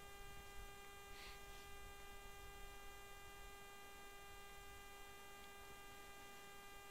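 Near silence, with only a faint, steady electrical hum.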